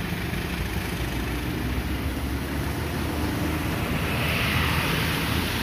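Distant diesel locomotive of a cement train running as it approaches, under a steady rush of rain and wind noise. A hiss swells about four seconds in.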